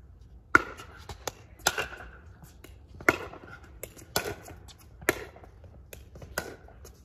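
Pickleball rally: a hard plastic pickleball struck back and forth by paddles and bouncing on the court, giving sharp hollow pocks about once a second.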